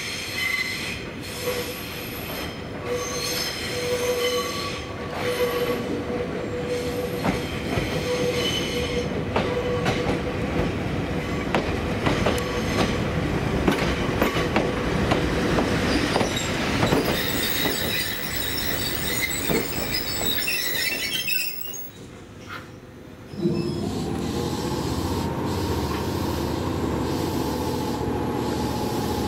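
Kobe Electric Railway 5000 series electric train rolling slowly through the depot. Its wheels squeal on the curves and click over rail joints and points. After a short lull about three-quarters of the way in, a steady mechanical hum with a held high tone takes over.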